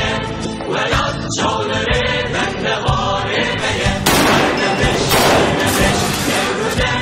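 Choral music with singing voices; about four seconds in, rapid fire from a twin-barrelled heavy machine gun breaks in loudly over it.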